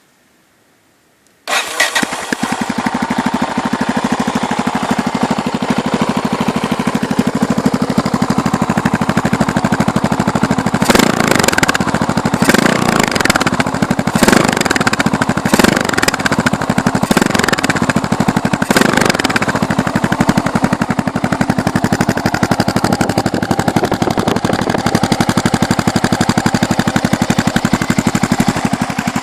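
MZ Baghira Black Panther 660 supermoto's Yamaha 660 cc single-cylinder engine, breathing through an Akrapovic exhaust with the dB-killer baffle removed. It starts up about a second and a half in and idles. Midway it is blipped in a series of short revs, then settles back to idle.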